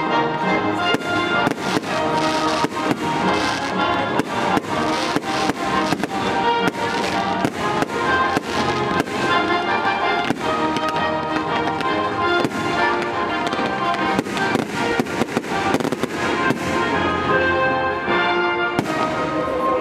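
Fireworks bursting in quick, irregular succession, many bangs a second, over the music of a pyromusical show.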